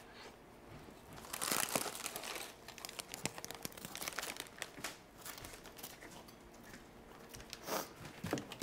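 Clear plastic food wrapper being handled and crinkled, with irregular rustling and sharp crackles. It is loudest a little over a second in and again briefly near the end.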